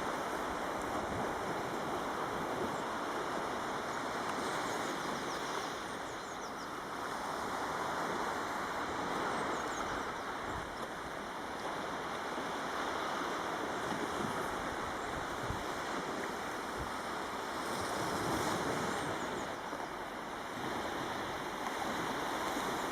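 Steady wash of surf on a beach, swelling and easing every few seconds.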